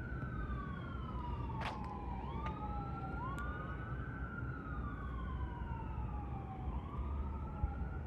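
Emergency-vehicle siren wailing, its pitch slowly rising and falling about every three to four seconds.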